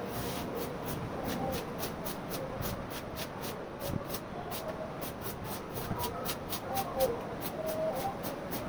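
A walis tingting (coconut-midrib stick broom) sweeping standing floodwater across a wet floor: a steady wet swishing and scraping.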